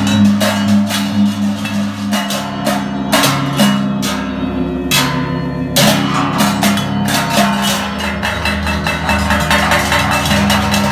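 Large Balinese hanging gongs struck in turn with padded mallets, their deep humming tones sustaining and shifting from one gong to the next, with fast crisp strikes layered over them throughout.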